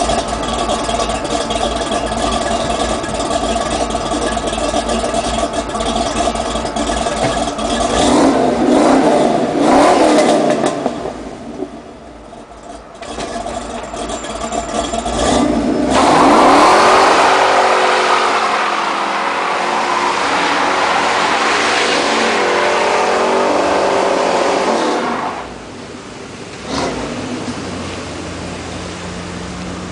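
Ford Ranger's 5.0 L 302 V8 with Hooker headers and MSD ignition revving hard in a burnout, the rear tyres spinning on wet pavement. The revs hold steady at first, sweep up and down, dip about twelve seconds in, then climb again and stay loud for about nine seconds before falling away as the truck pulls off.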